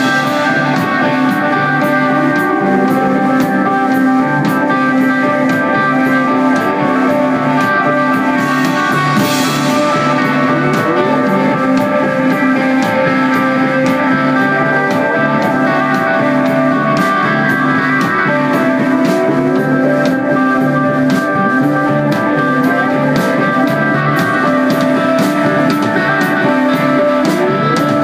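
Live rock band playing an instrumental passage: held electric guitar notes and drum kit, with short rising slides up the guitar strings every few seconds.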